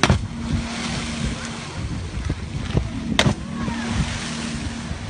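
Humpback whale slapping the water with its long pectoral fin: two sharp cracks about three seconds apart, over wind and sea noise and a boat engine's steady hum. Fin slapping of this kind is a warning to keep away.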